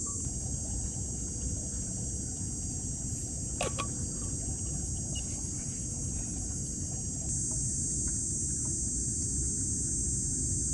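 Steady high-pitched insect chorus in a forest, growing louder about seven seconds in, over a constant low rumble, with one sharp click about three and a half seconds in.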